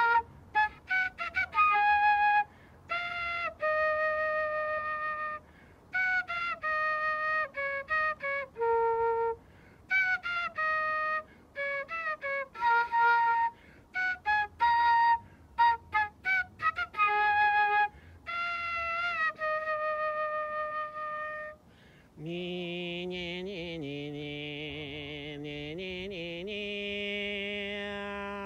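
A flute-like wind instrument plays a slow melody in short phrases of single held notes with pauses between. About 22 seconds in, a lower held tone with a wavering pitch takes over and runs on.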